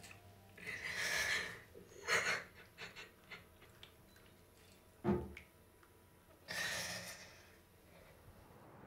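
A distressed teenage boy's ragged breathing: about four sharp, shaky breaths and gasps, one of them a low sob about five seconds in.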